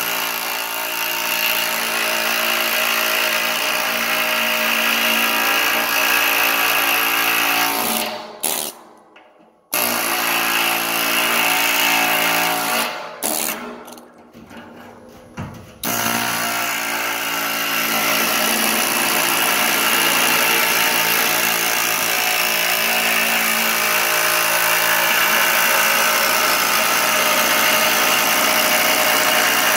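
Cheap pneumatic air hammer with a chisel bit chattering as it cuts through the steel lid of a 55-gallon drum. It runs in long steady bursts, stops for about a second and a half around eight seconds in, and goes in short stop-start bursts between about 13 and 16 seconds.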